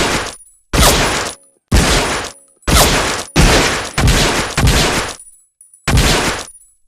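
M1911A1 .45 pistol firing single shots, about six in a row roughly a second apart, each with a short echoing tail.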